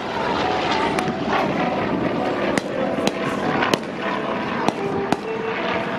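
Scattered sharp bangs of simulated strafing fire, about seven in six seconds at uneven spacing, over a steady engine drone.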